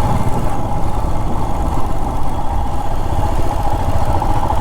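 Royal Enfield Himalayan's single-cylinder engine idling steadily, with an even low thumping beat.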